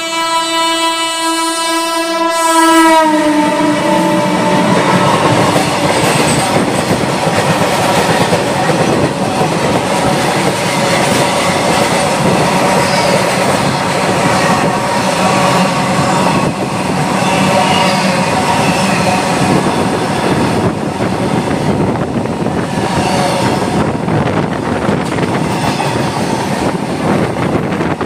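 A train horn blows a steady chord until about three seconds in. Then comes a loud, steady rumble and clatter of train wheels on the rails as a line of tank wagons moves past close alongside.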